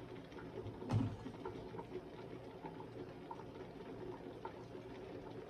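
Pot of red pea soup simmering, with a steady low bubbling and small pops, and a single soft thump about a second in.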